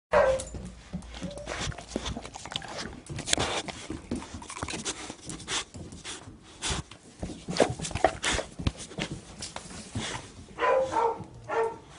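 Pit Bull-mix puppies moving about with scuffles and knocks, and short whimpers near the start and again near the end.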